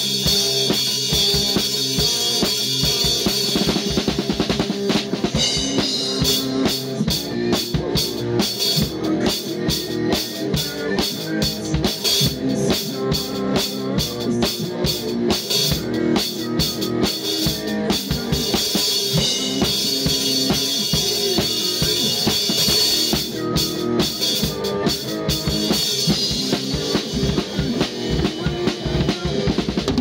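Hard rock band playing a groove built on a Malian rhythm, with the drum kit loudest: bass drum and snare hits under a cymbal wash at the start and again about two-thirds through, and rapid drum strokes in between. Held notes from other instruments run underneath.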